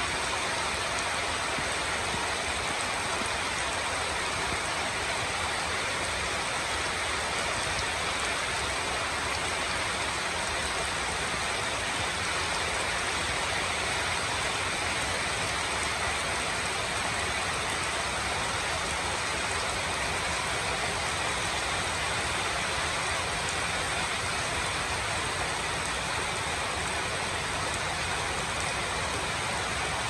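Rain falling steadily, an even hiss that does not change.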